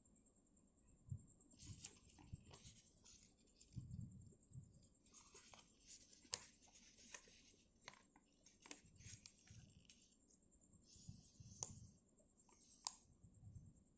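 Faint rustling and crinkling of a sheet of origami paper being handled and folded, in irregular short bursts with a few sharp ticks as creases are pressed down.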